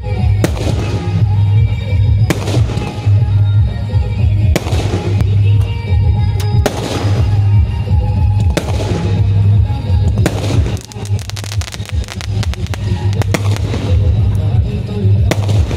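Aerial fireworks going off over music with a steady heavy bass: broad bangs come about every two seconds, and a run of rapid crackling pops falls about ten to twelve seconds in.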